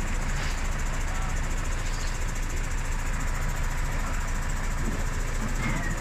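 Crane truck's engine running steadily, powering the hydraulic crane while it lifts a large tree log.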